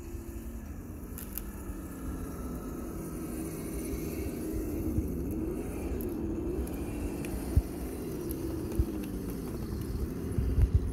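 Electric motor and gearbox of a radio-controlled rock crawler whining, the pitch rising and falling as the throttle is worked, with a few sharp knocks near the end.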